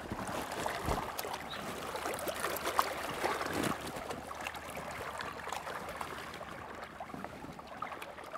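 River water lapping and gurgling against a drifting boat's hull, with a few faint small knocks.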